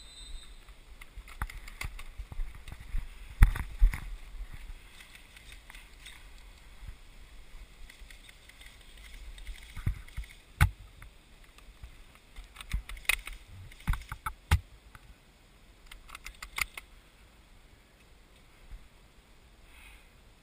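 Scattered knocks, clicks and rustles of gear handling and movement through tall grass, carrying an airsoft gun, over a low wind rumble on a helmet camera. The knocks are irregular. The loudest come at about three and a half seconds, at about ten and a half seconds, and in a cluster a little later.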